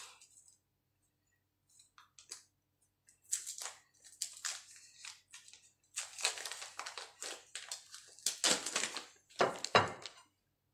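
Paper or foil wrapper of a block of butter crinkling and rustling as it is unwrapped and handled. The sound comes in irregular short bursts, with the heaviest ones near the end.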